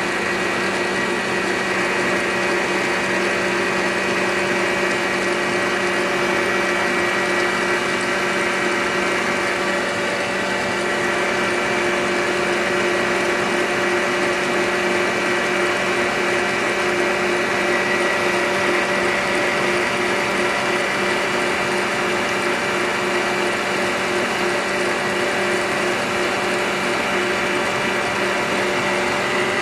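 Electric stand mixer running steadily at high speed, its motor giving a constant whine as the whisk beats eggs into a foamy sponge-cake batter.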